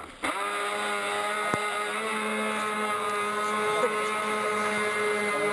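Remote-controlled model boat's motor running at speed, a steady pitched whine that holds one note.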